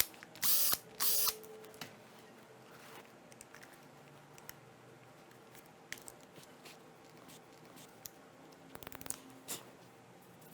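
Two short noisy bursts in the first second and a half as the dead angle grinder's housing is being opened, then scattered light clicks and knocks of its parts being handled.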